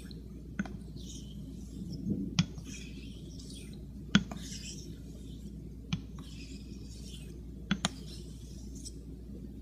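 A Greaves near-wedge straight razor being honed on a Shapton Pro synthetic whetstone to set a new bevel. The blade gives a light scraping hiss as it slides along the stone, with a sharp click about every two seconds as the razor is flipped over on its spine.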